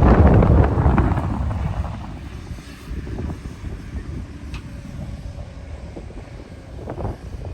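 Heavy diesel machinery working, loud for the first second or two and then easing to a steadier, quieter low rumble, with wind noise on the microphone.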